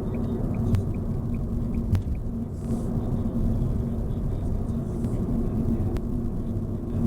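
A car driving along: a steady low rumble of engine and road noise, with a few faint clicks.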